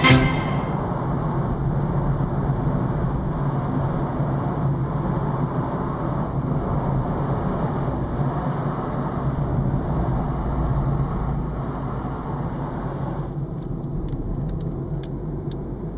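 Steady road and engine noise of a car driving through a stone road tunnel. The noise thins about thirteen seconds in, as the car comes out into the open.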